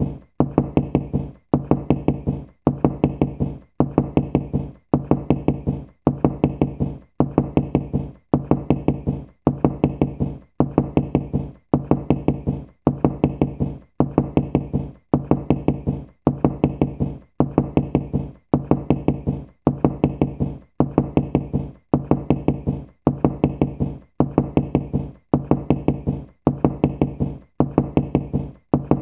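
Knocking with the knuckles, rapped in quick groups of several knocks. A new group comes a little more than once a second, evenly, as a steady loop.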